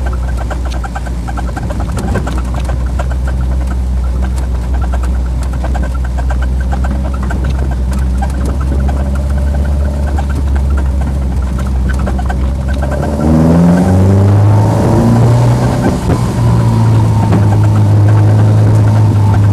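Caterham Super Seven's engine heard from the open cockpit, running at low, steady revs, then revving up about two-thirds of the way through and holding a higher pitch as the car accelerates.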